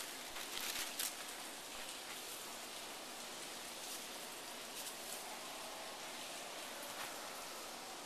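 Hard rain falling, a steady hiss, with a few sharp clicks in the first second.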